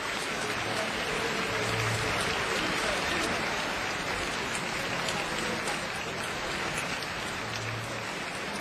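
Live audience applauding, a dense steady clapping that swells slightly about two seconds in and then slowly eases off.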